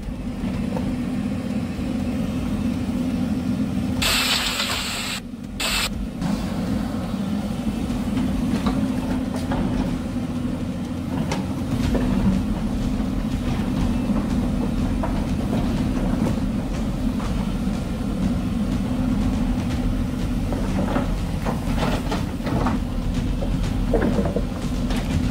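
Hyundai crawler excavator's diesel engine running steadily while digging, a continuous low rumble. About four seconds in, a hiss rises over it for around two seconds.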